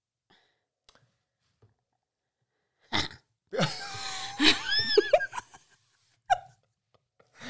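A person's stifled laugh, heard as a strange vocal noise: a short sudden burst of breath about three seconds in, then a breathy, strained sound with a wavering, gliding pitch for about two seconds.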